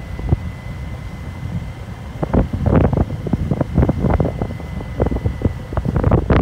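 Motorcycle riding on a rough dirt road, with wind buffeting the microphone over the low rumble of the engine. From about two seconds in, dense knocking and clattering come in as the bike jolts over bumps and stones.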